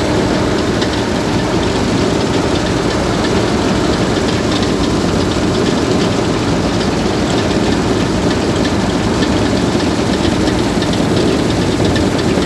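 Bizon Z056 combine harvester at work cutting wheat: its diesel engine runs steadily under load, with a dense mechanical rattle from the machine.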